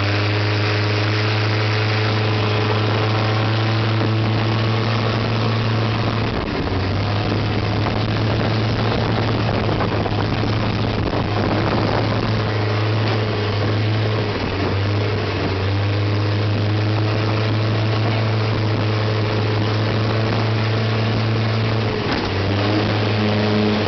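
Long-tail boat engine running steadily at speed, its low drone easing off briefly three times, over the constant rush of water and wind past the hull.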